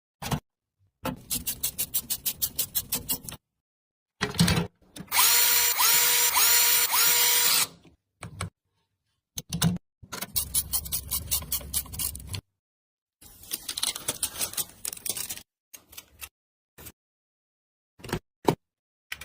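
A power screwdriver running and rapid ratcheting clicks, heard as a string of short clips that start and stop abruptly, with silent gaps between them. The longest and loudest stretch, about five seconds in, is a steady run with a repeating whine.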